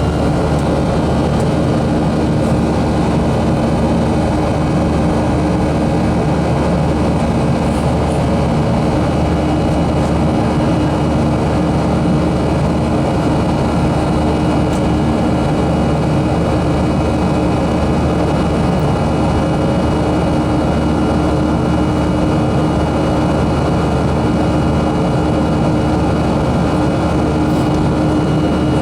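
Steady cabin drone of a Boeing 737-300 in flight: the rush of airflow, with the CFM56-3 turbofans' even hum and a few high steady tones over it.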